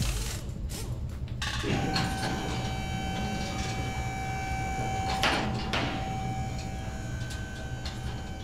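Auto repair shop background: a few knocks, then from about two seconds in a steady machine hum with a held tone, and two short hissing bursts in the middle.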